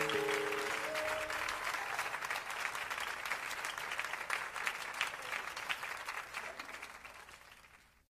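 Audience applauding as the song's last held notes die away, the applause fading out and cutting to silence near the end.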